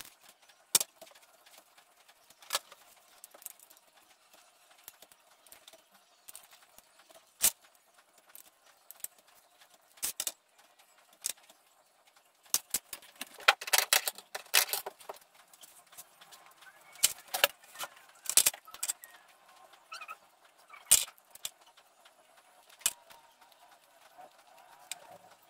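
Metal parts of a starter motor and hand tools clinking and knocking during reassembly: scattered sharp clicks, with a quick run of them about halfway through.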